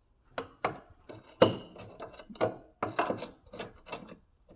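A metal pry bar clicking, knocking and scraping against a Jeep's track bar end and axle bracket as it is levered to check the track bar bushing for play. The knocks are irregular, about a dozen of them, with the loudest a little under a second and a half in.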